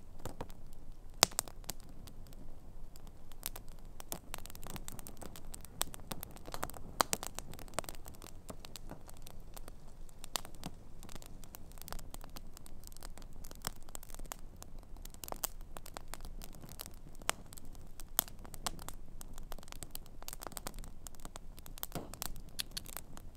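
Wood campfire burning, crackling with many irregular sharp snaps and pops, one louder pop about a second in.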